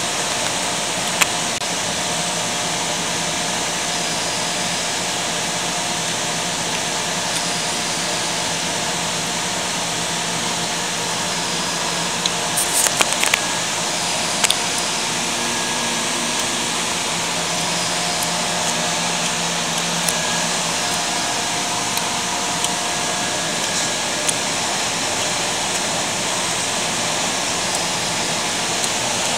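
Steady drone of machinery noise, like a large fan or ventilation, with faint humming tones running through it. A few light clicks come about halfway through.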